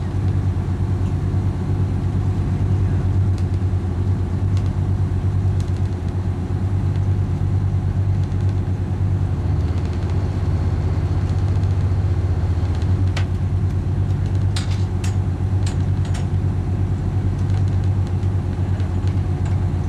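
An engine running steadily at an even speed, a constant low drone, with a few sharp clicks about two-thirds of the way through.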